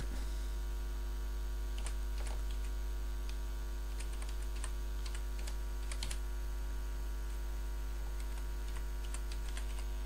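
Computer keyboard keys clicking as an email address is typed, in scattered irregular runs of taps, over a steady low mains hum.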